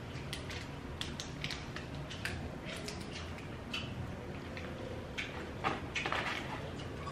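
Small plastic sauce sachet crinkling and clicking as it is handled and squeezed, in scattered short ticks with a louder rustle about six seconds in.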